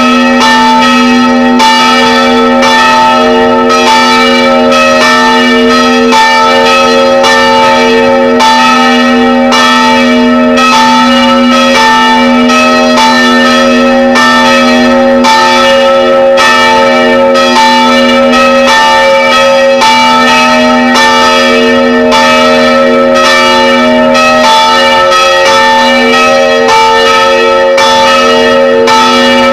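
Three church bells of 250 kg, 110 kg and 55 kg, swung by electromagnetic drives, ringing together at close range in the belfry. Their strikes come several times a second and overlap into one steady, very loud peal.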